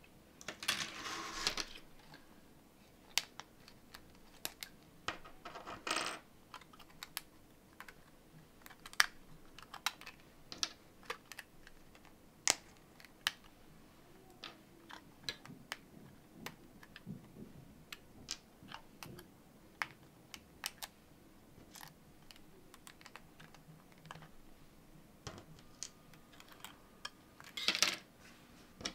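3D-printed plastic parts being snapped off their printed kit-card frames and set down on a cutting mat: irregular sharp clicks and snaps throughout, with a few short rustling handling noises from the plastic frames, near the start, about six seconds in, and near the end.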